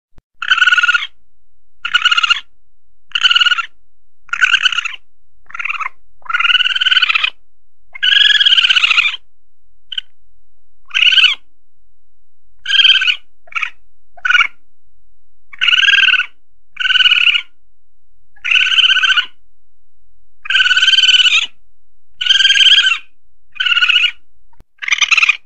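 Asian palm civet calls from a hunters' lure recording: a string of high-pitched cries, roughly one a second at uneven intervals, some short and some drawn out to about a second.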